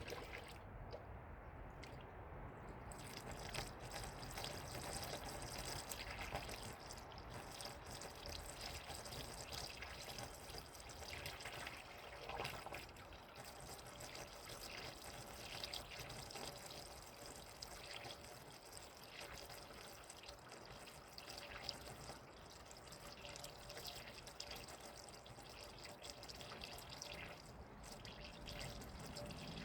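Coolant mix being poured from a jug into a car's radiator: a faint, steady trickle of liquid.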